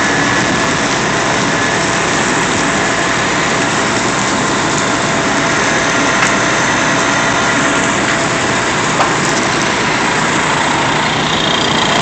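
Fire engine running steadily beside a portable folding water tank, with water gushing from a hose into the tank.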